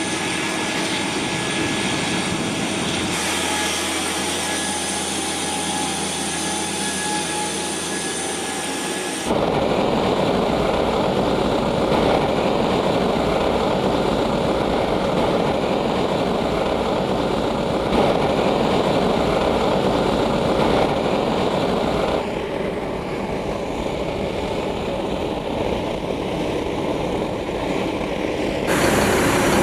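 Jet aircraft engine noise from a C-5M Super Galaxy's turbofans. It starts as a steady whine with held tones. About nine seconds in it jumps abruptly to a louder, rougher, fuller engine noise, and it shifts suddenly again twice near the end.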